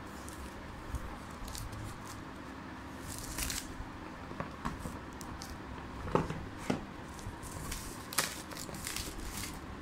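Clear plastic wrap crinkling and rustling as it is pulled off a cardboard phone box, with scattered sharp crackles and light taps of the box being handled.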